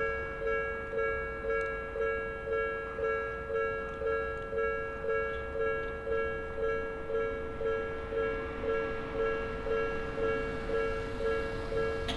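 Japanese railway level crossing's electronic warning bell ringing steadily, a little over two strikes a second, a two-note clang signalling that a train is approaching.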